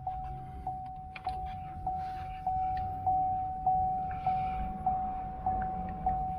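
A 2011 Chevy Camaro's electronic warning chime dinging over and over at an even pace, a little under two dings a second, with a few faint clicks and rustles in the background.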